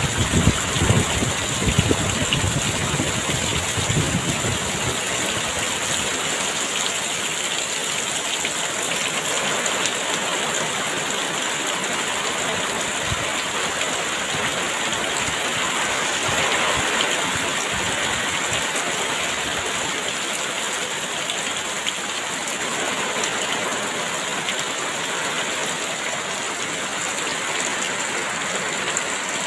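Heavy rain pouring steadily, a dense even hiss. Gusts of wind rumble and buffet through the first few seconds, then die down.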